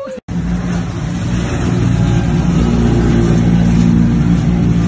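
Motorboat engine running steadily, with a noisy rush of wind and choppy water.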